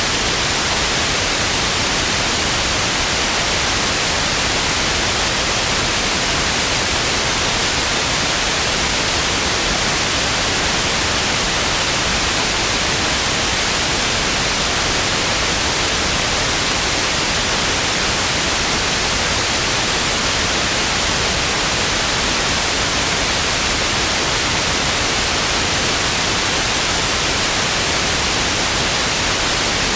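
Television static: a steady, loud, unbroken hiss of white noise, strongest in the treble.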